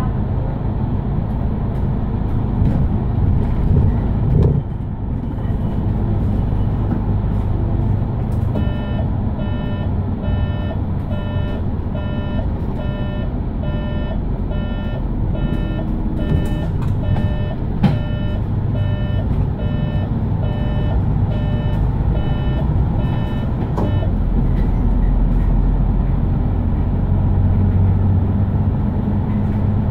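Mercedes-Benz Citaro city bus driving, a steady low engine and road rumble heard from inside the bus. About nine seconds in, an electronic beep starts repeating roughly twice a second and stops about fifteen seconds later.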